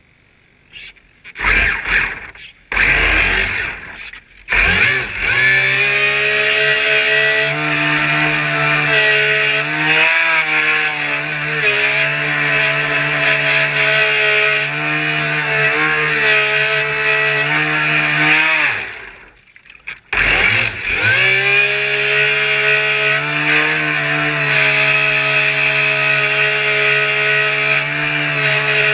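Small motor of a radio-controlled boat, giving a few short bursts, then running steadily with a buzzing, chainsaw-like tone. About two-thirds of the way through it dies away, then starts again about a second later and runs on steadily.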